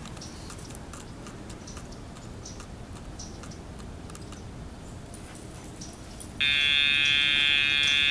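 Dogtra pager held down: a loud, steady electronic buzz starts about six seconds in and carries on. It is the page that tells the deaf puppy to turn and come. Before it there are only faint scattered ticks.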